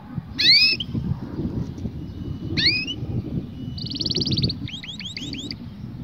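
Canary singing: two clear rising whistled notes a couple of seconds apart, then a fast buzzy trill and a quick run of rising sweeps near the end. A low rumble runs underneath.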